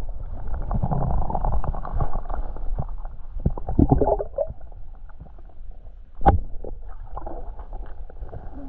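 Muffled underwater sound of a stream heard through a submerged camera: water moving and gurgling, with scattered small clicks and one sharp knock about six seconds in.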